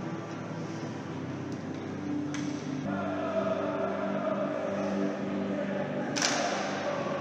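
Ice hockey arena ambience: a crowd noise bed with held musical notes over it, and two sharp knocks, about two and six seconds in.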